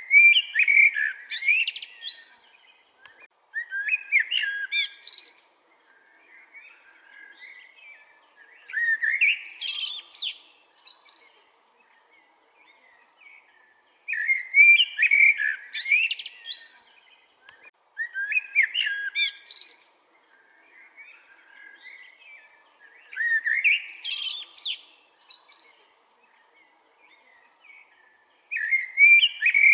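A songbird singing the same short, quick whistled phrase over and over, about every four to five seconds, with fainter chirps from other birds in the gaps.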